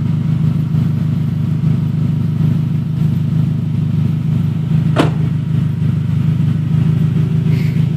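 Loud race-prepped Toyota Camry engine idling steadily. A single sharp click comes about five seconds in.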